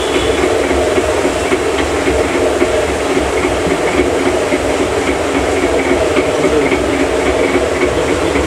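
Motor-driven rotating sugar-coating pan turning steadily, a continuous rumbling drone with the rustle of elaichi dana sugar candies tumbling inside and a faint regular ticking.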